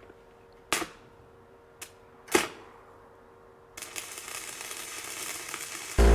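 Two sharp knocks about a second and a half apart, with a lighter click between them, then a hiss that builds and an engine starting up abruptly near the end and running loud and steady.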